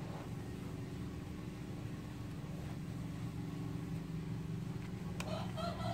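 A steady low mechanical hum, like an engine running. About five seconds in, an animal's call with several stacked tones begins.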